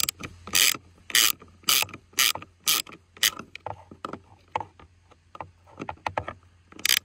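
Small hand ratchet clicking in quick bursts about twice a second, then more faintly, as the nuts holding a robotic lawnmower's blade plate are run down by hand, with a louder burst of clicks near the end.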